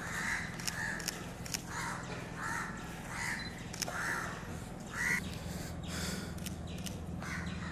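Crows cawing repeatedly, about one call a second, over a steady low hum, with a few sharp clicks.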